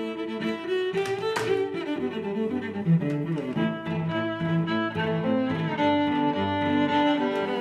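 Background music led by cellos and other bowed strings, playing sustained, changing notes, with a few sharp clicks over it, the loudest about three seconds in.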